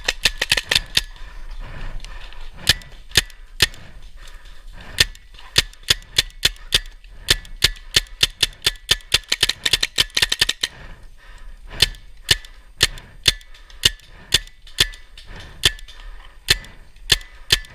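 Airsoft guns firing in a field skirmish: a long series of sharp single shots, about two to three a second, coming faster for a moment near the middle, then spaced out again.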